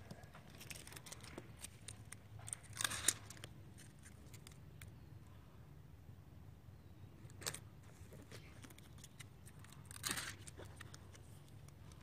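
Faint handling of self-adhesive Velcro strips as their protective backing is peeled off and they are pressed onto a plastic rail, with a few short tearing sounds about three, seven and a half and ten seconds in.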